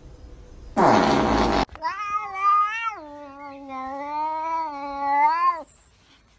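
A loud, harsh burst lasting under a second, then a domestic cat's long, drawn-out yowl of about four seconds. The yowl drops to a lower pitch about halfway through and stops abruptly.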